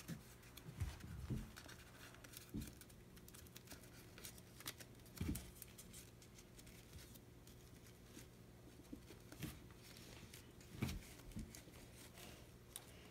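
Faint rustling and light crinkles of paper being handled as loose flaps are tucked back into a folded paper ninja star, with scattered soft clicks over a faint steady hum.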